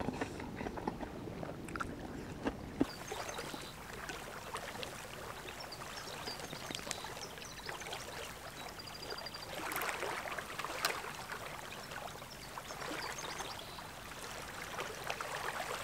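Small waves lapping softly at a sandy shore, a low steady wash of water with scattered small clicks and a brief run of faint ticks about two-thirds of the way through.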